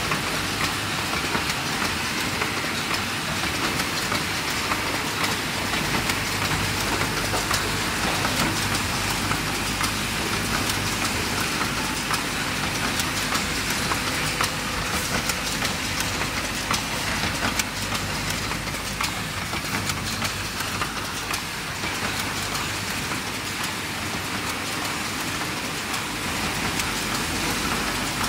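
Automatic garment-hanger clip assembly machine running: a steady mechanical clatter of many quick, irregular clicks over a hiss and a low hum.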